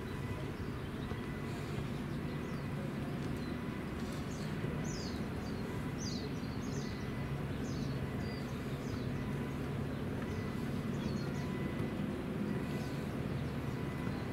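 Outdoor ambience: a steady low background rumble, with a bird chirping a string of short high calls in the middle.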